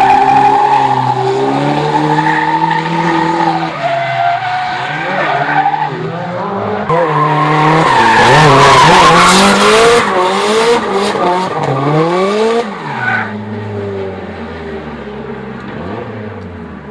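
Race cars drifting through a hairpin: the engines rev hard up and down while the tyres squeal and skid. From about 13 seconds in, the engine note fades as the car pulls away up the road.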